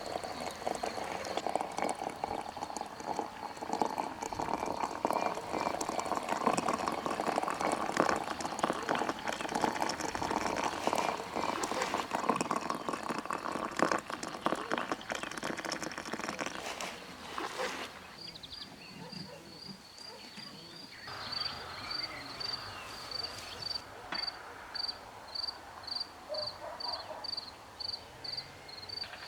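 Insect chirping in a high steady tone. For the first half it sits under a dense run of crackling and clattering; about 18 seconds in that stops and the chirping carries on alone as even pulses about twice a second.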